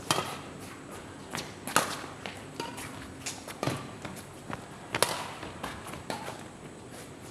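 Badminton rackets striking a shuttlecock in a fast doubles rally: sharp hits at irregular spacing, roughly one a second or faster, with quieter footfalls on the court between them.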